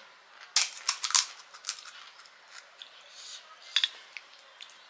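Crisp, hard panipuri shells cracking and crunching in a cluster of sharp crackles about a second in, with another near the end.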